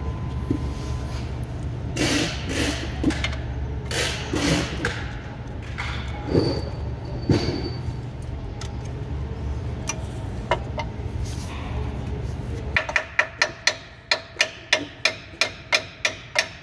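Metal parts clinking and knocking as the load-wheel assembly of a lift-truck fork is worked on. Near the end, quick even hammer taps, about three a second, tap a part into place in the wheel frame.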